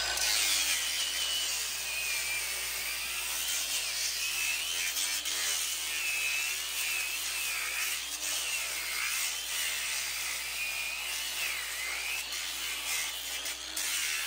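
Battery angle grinder with a sanding disc grinding down a horse's hind hoof: a steady motor whine with a gritty rasp that wavers up and down in pitch as the disc works the hoof.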